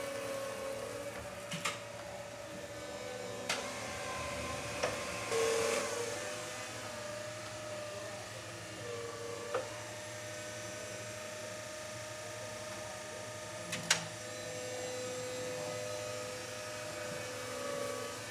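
TCM FB15 battery-electric forklift running: a steady electric motor whine that steps up and down in pitch as it drives and works the mast. A handful of sharp clicks and knocks are spread through it, and there is a short hiss about five seconds in.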